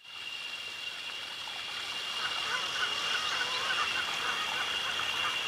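Film soundtrack ambience fading in: a steady high whine over a hiss, joined about two seconds in by a run of short repeated calls, about four a second, like animal calls at night.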